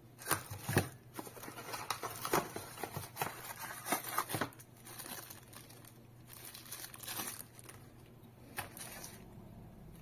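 Thin clear plastic bag crinkling as a small plug adapter inside it is handled and unwrapped. The rustling comes in irregular bursts through the first four and a half seconds, then a few more around seven seconds and again near nine.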